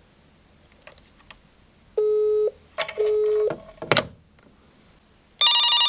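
Telephone busy tone on a line the other end has hung up: two beeps of about half a second at the same low pitch, half a second apart, followed by a clatter. Near the end a telephone starts ringing with an incoming call.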